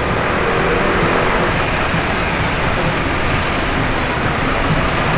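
Steady city street noise dominated by passing road traffic, a continuous even rumble and hiss of vehicles.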